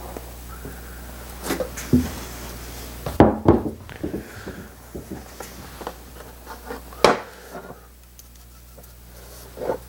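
Scattered knocks and clunks of handling over a low steady hum: a metal can of paint stripper set down on the workbench a little after three seconds in, and wooden chair arms bumped in aluminium sheet pans as the stripper is spread on them, with one sharper knock about seven seconds in.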